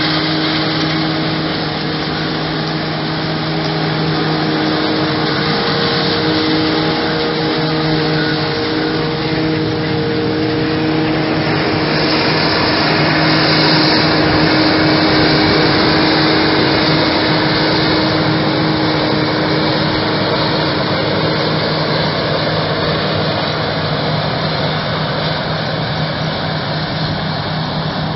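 Krone Big X 1100 forage harvester chopping maize, its engine and cutterhead running steadily under load together with a Fendt tractor pulling the silage trailer alongside. The rushing noise grows louder around the middle as the machines pass closest, then eases off slightly.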